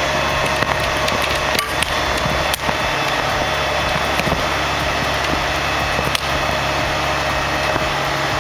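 Stump grinder running steadily as its cutting wheel grinds into a tree stump, with a few sharp ticks of wood chips.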